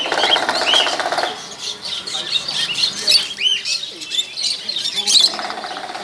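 A chorus of caged parrots and small cage birds, such as conures, lovebirds, cockatiels and budgerigars, chirping and calling over one another. Two louder raspy stretches stand out, one right at the start and one near the end.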